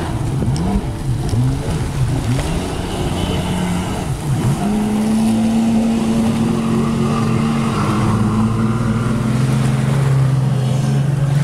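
Jet ski engine revving up and down in short bursts, then running at a steady pitch as it speeds off through the surf, settling to a lower steady pitch about eight seconds in.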